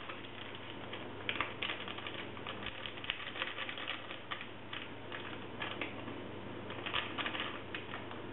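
Irregular light clicking and tapping of kitchen utensils and containers being handled, in short clusters with brief pauses.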